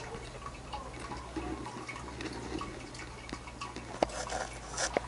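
Aquarium water trickling with scattered small clicks and ticks over a steady low electrical hum. A sharp click about four seconds in is the loudest, and a cluster of clicks follows near the end.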